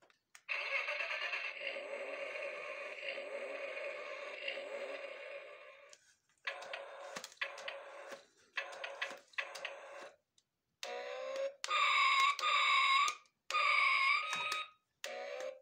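Toy RC monster truck's electronic sound effects from a small speaker, worked by buttons on its steering-wheel remote: a continuous buzzy sound for about five seconds, then a string of short bursts about a second long, and near the end several wavering, siren-like tones.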